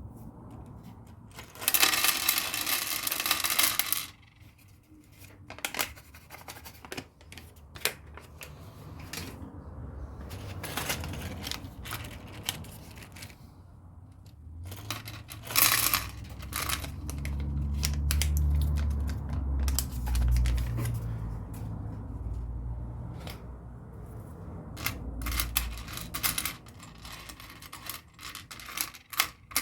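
Plastic LEGO bricks clattering and clicking as parts bags are opened and the pieces poured out and spread over a table. There is a loud burst of bag rustling and pouring about two seconds in, and some dull thumps of handling midway.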